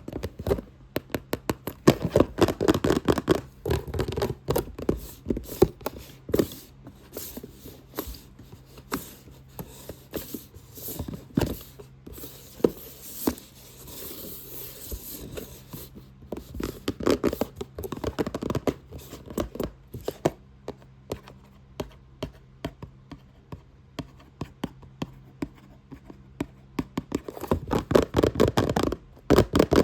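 Fast, aggressive tapping on a box in rapid flurries of sharp taps, with a stretch of scratching on the box's surface near the middle.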